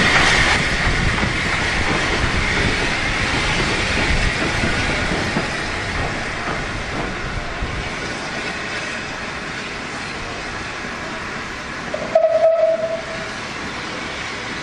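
Small steam locomotive moving away along the track, its running noise loudest at first and fading steadily as it draws off. About twelve seconds in, one short whistle note sounds.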